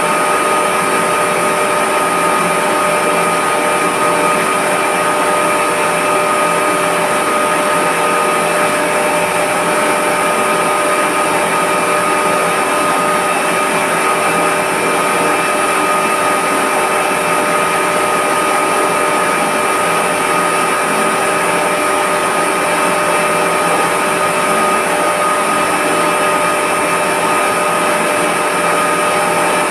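Reverse-osmosis plant's high-pressure pump and its large electric motor running, a loud steady machine drone with a constant whine that does not change.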